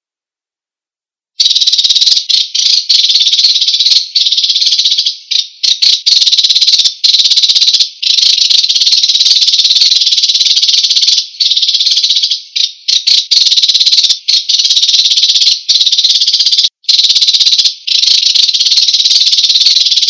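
Songbird billed as an American sparrow singing a loud, nearly unbroken high-pitched trilling chatter with only brief breaks, starting abruptly about a second and a half in.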